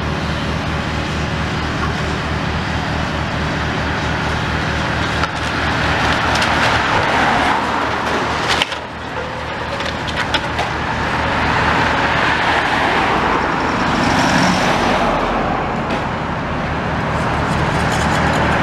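Tracked demolition excavator's diesel engine running steadily under load, with crunching and clattering of brick and timber rubble as its demolition grab tears down walls in several spells, including a sharp crack about eight and a half seconds in.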